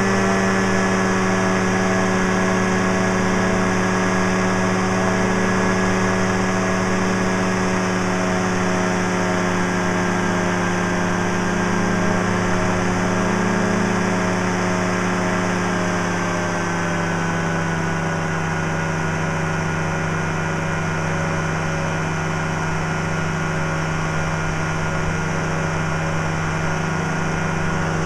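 Powered parachute's engine and propeller droning steadily in flight. About two-thirds of the way through, the pitch and loudness ease down slightly, then hold.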